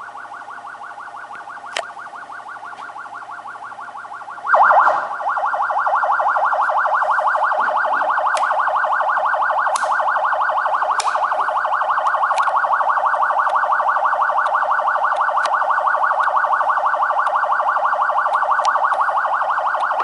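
Electronic police siren sounding a fast, even warble. It jumps louder about four and a half seconds in, with a few faint clicks over it.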